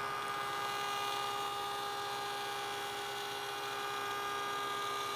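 A steady electrical hum made of several even, unchanging pitched tones.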